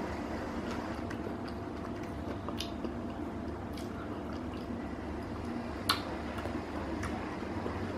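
Small wet mouth clicks and smacks of someone eating ice cream, over a steady low room hum, with one sharper click about six seconds in.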